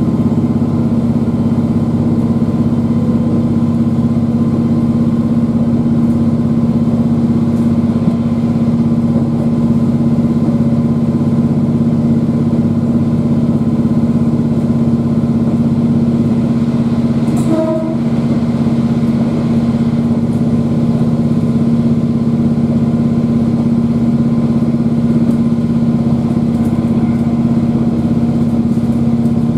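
KiHa 40 diesel railcar's engine and running noise heard from inside the car: a steady, even drone as the railcar cruises at a constant speed. A brief faint tone sounds about eighteen seconds in.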